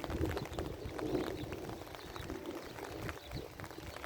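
Thunderstorm noise: rain pattering in many quick taps close to the microphone over a steady low rumble.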